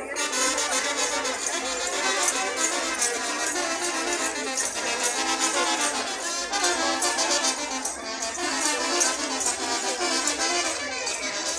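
Brass band playing dance music, with trumpets and trombones, and bells jingling over it.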